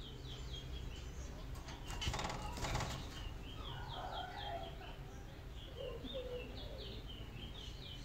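Zebra finches in a cage chirping steadily in quick, short, high notes, with a flurry of wing flapping and scuffling about two to three seconds in as the birds fight.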